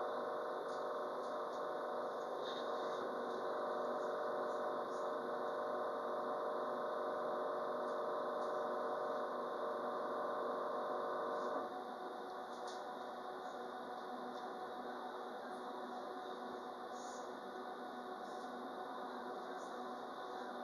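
Citadis Dualis electric tram-train running along the line, heard from the cab: a steady running noise with a several-toned whine. About halfway through the whine cuts off suddenly, leaving a quieter running noise.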